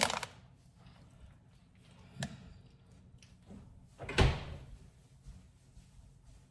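Kitchen handling sounds: a light knock about two seconds in, then a louder bang with a short ring-out about four seconds in, like something set down hard or a cabinet door shut.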